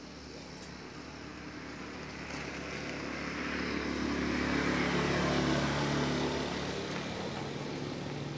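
A motor vehicle passing on the road, its engine and tyre noise growing louder to a peak about five seconds in, then fading.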